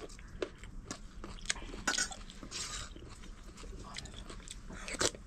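Someone chewing and eating a meal of rice and lentil soup (dal-bhat), with soft mouth sounds and scattered small clicks.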